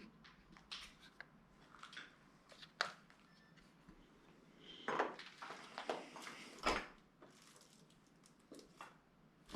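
Scattered light knocks, clicks and scuffs from people moving about and handling gear in a quiet room, the clearest about three, five and seven seconds in.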